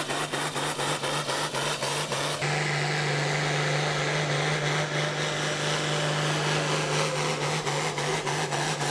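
Outlaw farm tractor's turbocharged diesel engine running flat out under full load during a pull, a steady heavy drone with a regular pulsing.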